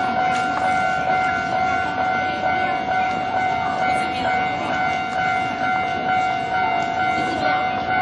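Japanese level-crossing warning bell, the electronic 'kan-kan' alarm, ringing as a steady repeating tone while the barrier arms come down: the crossing is closing for an approaching train.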